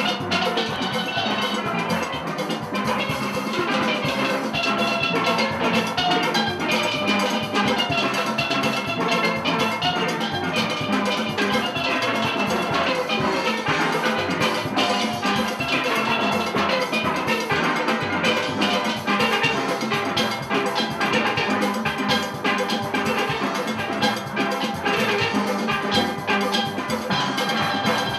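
Steel orchestra playing a calypso arrangement live: many steel pans struck with sticks in quick, steady runs of bright ringing notes, with no break.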